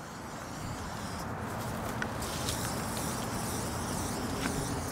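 Aerosol spray-paint can hissing in spurts against a brick wall, over a low steady outdoor rumble, with a couple of light clicks.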